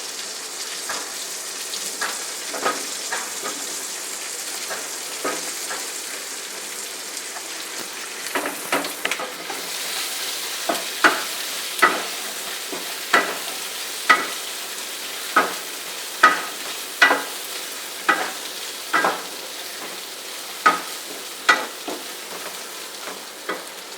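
Spices sizzling in hot mustard oil in a pan, a steady frying hiss. From about eight seconds in, a spatula knocks and scrapes against the pan roughly once a second as the contents are stirred.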